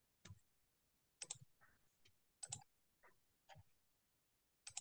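Faint, irregularly spaced clicks from computer use, about eight short clicks, picked up over a video call's quiet audio.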